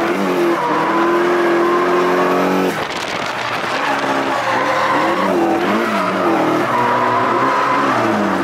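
Nissan 180SX's turbocharged four-cylinder engine running at high revs while drifting, its revs dropping sharply about three seconds in and then bouncing up and down several times, as with clutch kicks, along with tyre squeal.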